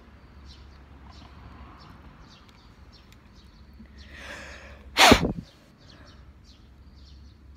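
A person's sharp, loud burst of breath about five seconds in, after a brief drawn-in breath just before it, like a sneeze.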